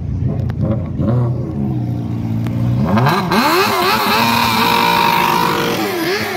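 Sport motorcycle engine idling, then revved in a string of quick rising and falling blips from about three seconds in. It is held high for a moment, then drops back with a last blip near the end.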